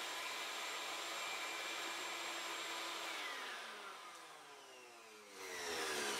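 Shop vacuum and milling machine running steadily, then switched off about three seconds in. The motor whine falls in pitch and fades as it spins down, and a rush of noise rises again just before the end.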